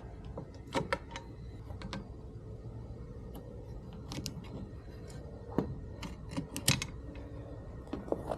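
Irregular sharp metallic clicks and clinks of small metal parts and tools being handled, a few of them louder than the rest.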